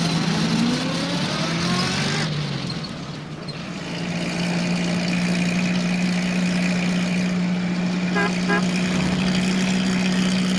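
Small van engine rising in pitch as it pulls away, then running steadily, with two short high beeps about eight seconds in.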